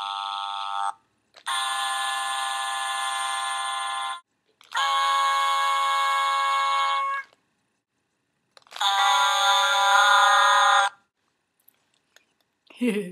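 Sing-A-Ma-Jig plush toys singing together in harmony: a held electronic vocal chord ending about a second in, then three more held chords of two to three seconds each, with short pauses between.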